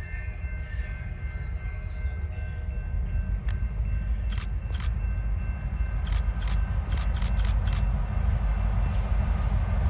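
Diesel freight locomotives, an EMD SD40-2 and GP38-2, rumbling as the train approaches, growing steadily louder. The tail of a horn fades over the first couple of seconds, and a run of sharp clicks comes through the middle.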